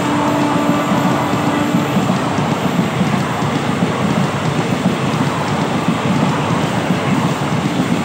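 Passenger coaches of an express train passing at speed close by: a steady loud rush and rumble of wheels on the rails. The locomotive's horn, still sounding from up the line, stops about two seconds in.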